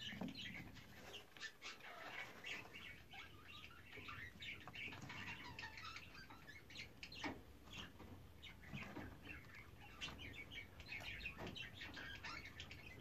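A broody hen shuffling and scratching in the dry nest litter as she settles down onto her eggs, with faint, scattered high chirps.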